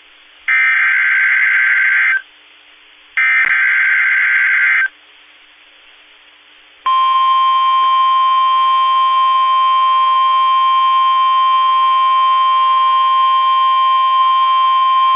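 Emergency Alert System SAME header: two short bursts of digital data tones, then about a second and a half later a single long steady warning alarm tone of about 1050 Hz lasting roughly nine seconds. The sequence signals an incoming weather warning broadcast.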